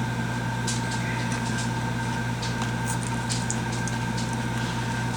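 Steady low electrical or mechanical hum, with fainter high steady tones above it and a few faint soft clicks, about a second in and around three seconds in.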